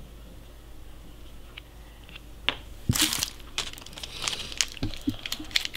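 Handling of toy packaging: a few light plastic clicks, then about three seconds in a loud crackle of crinkling wrapper, followed by a run of small crinkles and clicks.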